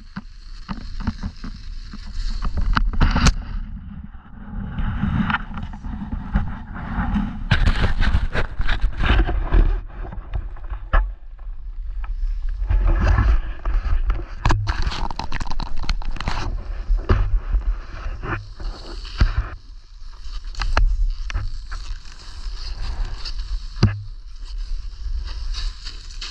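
Edges sliding and scraping over snow during a downhill run, in waves of carving turns every few seconds, over a steady low rumble.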